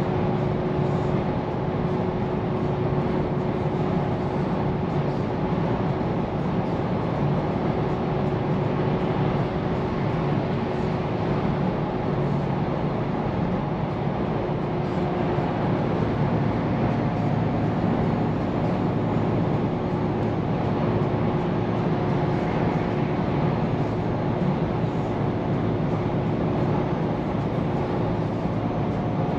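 Scania P410 truck driving at a steady speed: an even drone of engine and road noise, with a faint constant whine over it.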